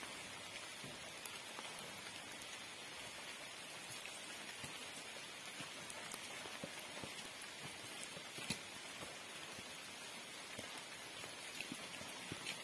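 Heavy rain falling: a steady hiss with many scattered drop ticks, and one sharper hit about two-thirds of the way through.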